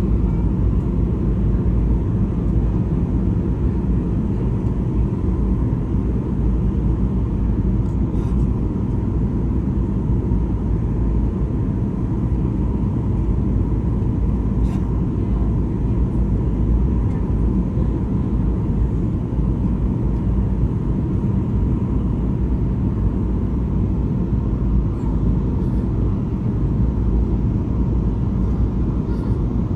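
Steady engine and airflow noise inside a jet airliner's cabin during the descent to landing, a deep even rumble with a faint steady whine above it and a few faint ticks.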